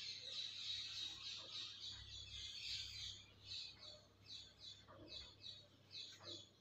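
Chalk drawing strokes on a chalkboard: a quick run of short, high-pitched scratches as lines are drawn, sparser in the second half.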